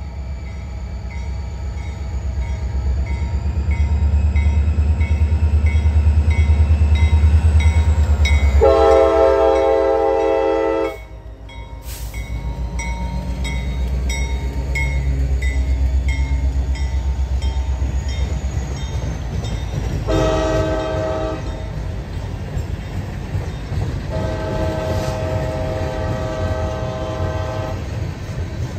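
CSX SD40-2 locomotive's diesel engine rumbling as it passes, loudest in the first third, with its Nathan K5LA horn sounding three blasts: a long one about nine seconds in, a short one around twenty seconds, and a longer one near the end. A bell dings steadily under the engine early on.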